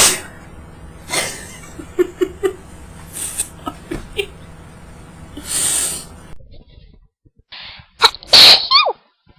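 Young women sneezing several times in succession. The loudest sneeze, near the end, is high-pitched and voiced, falling in pitch.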